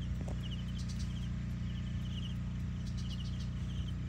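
A DJI T20P agricultural spraying drone's rotors hum steadily at a distance, under short insect trills that repeat about twice a second.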